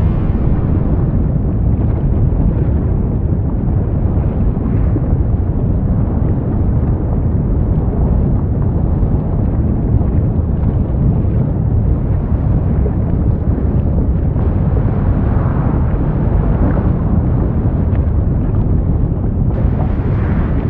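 Deep, steady rumble of an erupting volcano, with a few faint crackles and pops.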